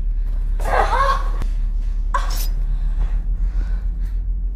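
A young woman's short wordless vocal outbursts, one about half a second in and a sharper one about two seconds in, over a steady low drone.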